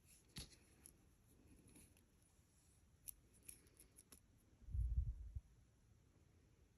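Faint small clicks of metal clip-on earrings being handled, with one louder dull low thump about two-thirds of the way in.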